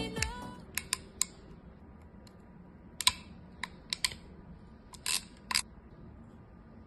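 Ratcheting crimping plier set being handled: about a dozen sharp clicks in small clusters, like ratchet teeth or a die snapping into the jaws. The tail of background music fades out at the start.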